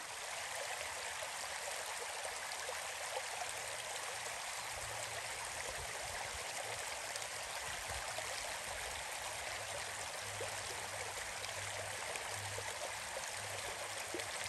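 River water running steadily: an even, unbroken rush of flowing water.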